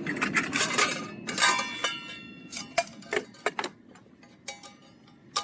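Metal camp cookware and utensils clinking: a quick run of sharp clinks, several leaving a short metallic ring, that thins out to scattered single clinks.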